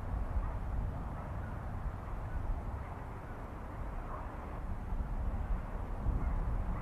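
Outdoor ambience: a steady low rumble with faint bird calls, crow-like caws among them.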